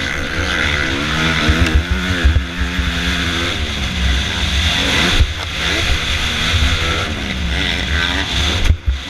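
Motocross dirt bike engine, heard from the rider's onboard camera, revving hard and repeatedly rising and falling in pitch as it accelerates through the gears. The revs drop sharply about five seconds in and again near the end, with low knocks from the bumpy track underneath.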